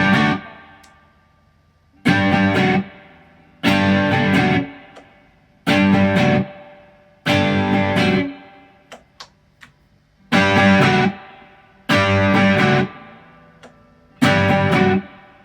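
ESP LTD EC-256 electric guitar strumming chords through an amp, about seven separate strikes. Each chord rings for about a second and is then muted, with short gaps between them and a few faint string clicks in one of the gaps.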